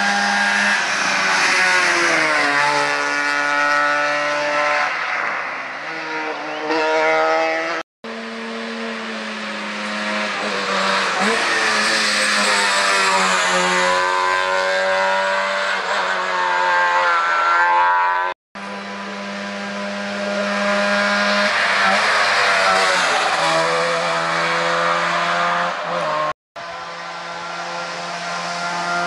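Rally cars passing one after another at speed, engines revving hard, the pitch falling as each goes by. The sound cuts off abruptly three times between passes. Among the cars is a Trabant with its two-stroke twin-cylinder engine.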